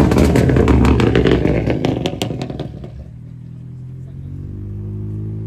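A car's engine revving loudly with a rapid string of sharp exhaust crackles and pops, fading out about three seconds in. After that a quieter engine runs with a steady, low note that swells slightly.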